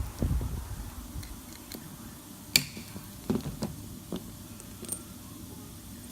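Small metal parts clicking and knocking now and then as the washer on the engine's sump drain plug is replaced, with one sharp click about two and a half seconds in and a low rumble of handling in the first second.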